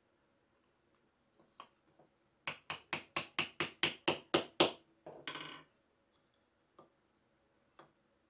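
A quick run of about ten hammer taps on wood, about five a second and growing louder, followed by a short scrape.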